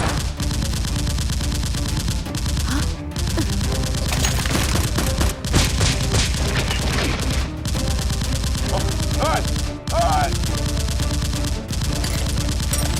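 Rapid, repeated bursts of automatic gunfire sound effects over background music.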